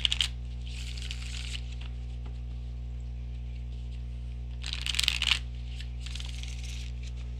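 Tarot cards being shuffled by hand: two short spells of shuffling about a second apart near the start, then two more around five and six seconds in, over a steady low hum.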